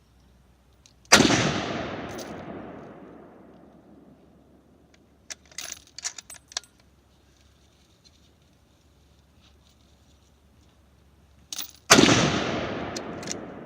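Two gunshots about eleven seconds apart, each with a long echo that dies away over about three seconds. Between them there is a short run of sharp metallic clicks.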